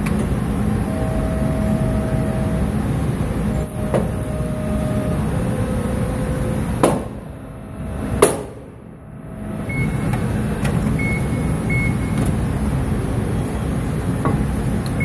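Amada press brake running with a steady hum as it cold-bends a thick armor plate in a vanadium forging die. About seven seconds in come two sharp bangs about a second and a half apart, the second the louder: the plate releasing its energy under the press's force.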